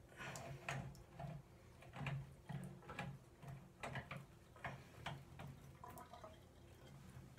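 Plastic barbed drain snake being worked up and down in a clogged bathtub drain to pull out hair: faint irregular clicks and scrapes, about two strokes a second.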